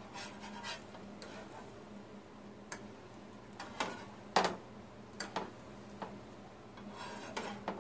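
Metal spatula and fork tapping and scraping on a nonstick griddle as blue corn pancakes are flipped: scattered sharp clicks, the loudest about four and a half seconds in.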